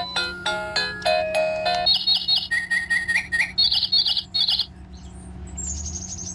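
Home Zone wireless doorbell receiver playing its chimes through a small speaker: a short melody of bright chiming notes, then about two seconds in a bird-song chime of quick, evenly repeated electronic chirp trills. Near the end, fainter high chirping calls from real birds answer it.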